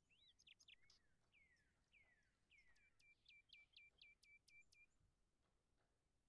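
Faint bird song: a few chirps and downward-sliding whistles, then a run of about eight quick identical notes, about four a second, each dropping sharply in pitch.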